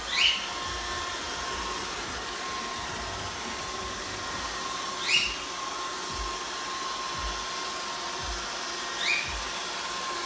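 FONZO robot vacuum cleaner running with a steady whir and a faint constant whine. Three short chirps that rise quickly in pitch sound over it: right at the start, about halfway through and near the end.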